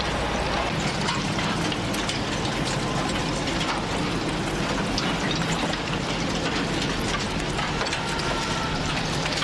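Steady outdoor crackling and hissing noise with many fine clicks, over a low steady rumble; a faint thin tone sounds near the end.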